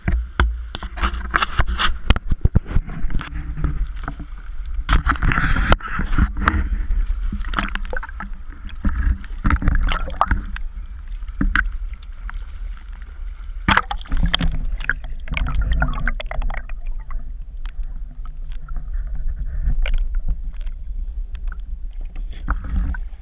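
River water sloshing and splashing against an action camera mounted at the waterline of an inflatable raft, with a steady low rumble and many sharp knocks and thumps throughout.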